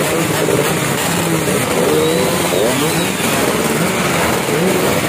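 Several two-stroke underbone racing motorcycles running together in a dense, loud din, their engines blipped so that the pitches rise and fall over one another.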